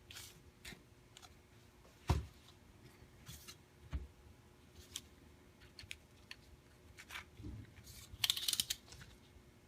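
Faint handling sounds as a flashlight and its USB charging cable are set up for charging. Scattered light clicks and taps, with a heavier knock about two seconds in and a short rustle near the end.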